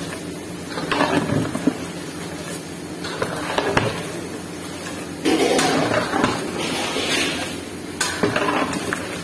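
A long-handled metal spatula stirring rice through boiling stock in a large aluminium cooking pot, scraping and now and then knocking sharply against the metal pot.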